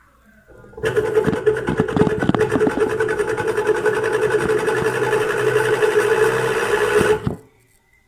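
Samsung inverter washing machine's BLDC motor running with a rapid rattle over a steady hum, starting about a second in and cutting off near the end. The noise comes from worn motor bearings, which the repairer says is cured by replacing the bearings.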